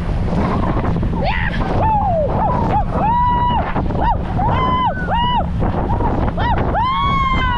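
Riders screaming and shrieking, short high-pitched cries one after another, the longest near the end, over steady wind buffeting the microphone and the rumble of the boat on the water.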